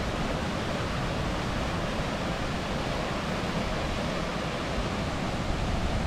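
Steady rush of a mountain stream cascading over rocks below a waterfall.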